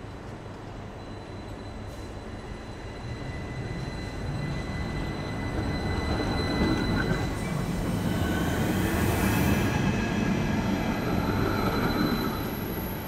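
Stadler Variobahn tram pulling out of the platform and running past close by, its rail and running noise building over several seconds, loudest in the second half, then easing off near the end.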